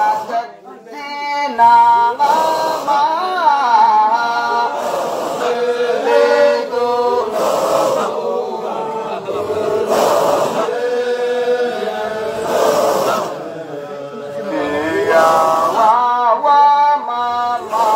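A group of men chanting a Sufi Qadiriya dhikr together in call-and-response style, with melodic rising and falling lines, accompanied by hand claps.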